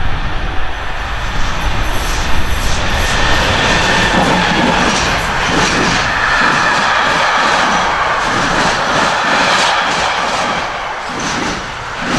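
Container freight train passing close by: wagons loaded with shipping containers rolling past in a loud steady rumble, with a regular clatter of the wheelsets about twice a second.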